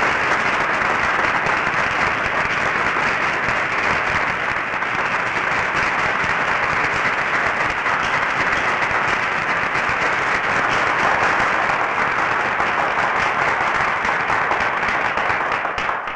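Audience applauding: steady, dense clapping of many hands that keeps an even level throughout and tails off at the very end.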